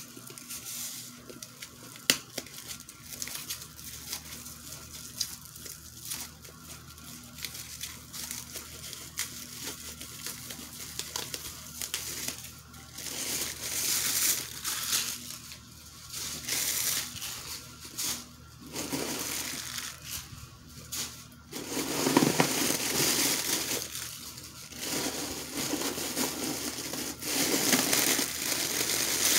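Plastic and tissue-paper packaging crinkling and rustling in irregular bursts as it is peeled off a handbag's handles and pulled out from inside the bag. The bursts grow louder in the second half, and there is one sharp click about two seconds in.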